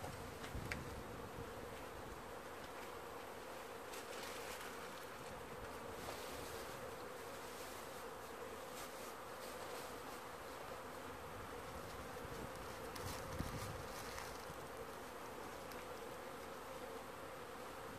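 Honey bees buzzing in front of the hive entrance as many young bees make their orientation flights: a steady, continuous hum of wings.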